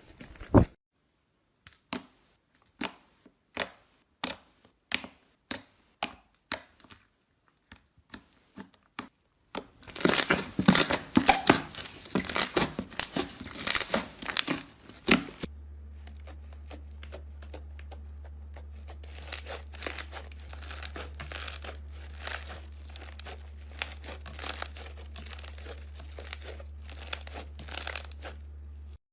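Slime being pressed and squished by hand, giving crisp pops and crackles. A run of separate pops comes about one and a half a second, then a few seconds of dense crackling, then lighter crackling over a steady low hum.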